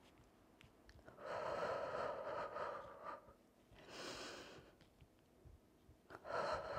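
A woman breathing hard with the effort of a Pilates exercise: three long, audible breaths, the first lasting about two seconds.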